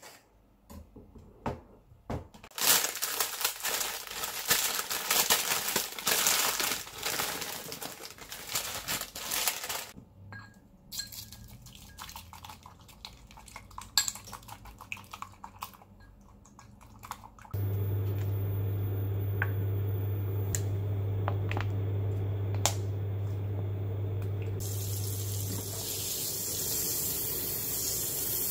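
A kitchen knife taps on a plastic cutting board, then tap water runs for several seconds, then chopsticks click against a small glass bowl as a salad is mixed. About two-thirds of the way in, an induction cooktop starts a steady low hum under a pan of water. Near the end a hiss of the water heating joins it.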